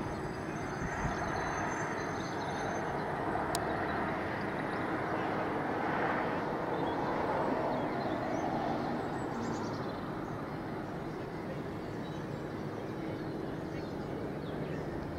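Diesel trains at a distance: a steady rumble from standing freight locomotives and a slowly approaching diesel multiple unit.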